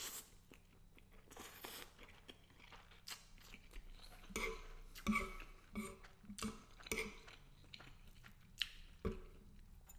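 Close-up chewing of garlic butter shrimp pasta, with irregular wet mouth smacks and clicks.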